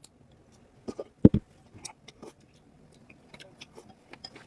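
A porcelain bowl is set down on a table, giving two quick knocks about a second in. Faint clicks follow as chopsticks stir in the bowl.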